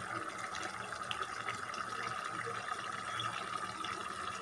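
Chicken curry simmering in an open pot at the boil: a steady bubbling hiss with small scattered pops.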